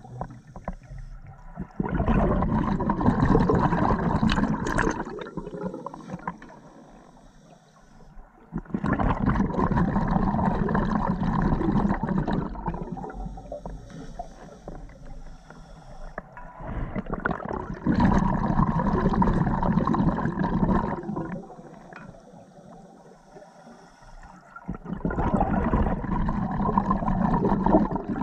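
Underwater scuba diving: bursts of exhaled bubbles from a diver's regulator, four breaths about eight seconds apart, each a rushing, gurgling burst lasting a few seconds, with quieter spells between.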